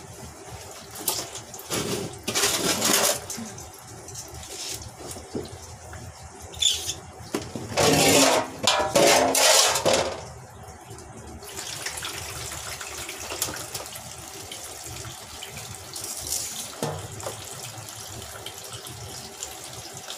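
Water splashing in a basin as taro stems are washed by hand, loudest about two seconds in and again from about eight to ten seconds, then water running steadily from a hose into the basin.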